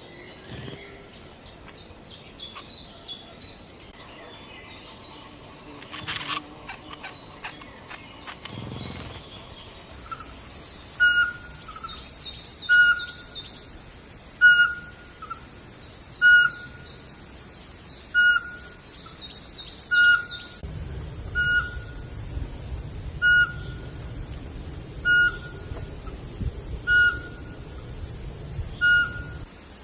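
Birds singing: high, fast chirping trills for about the first ten seconds, then a short whistled note repeated about every two seconds, with brief high chirps over it.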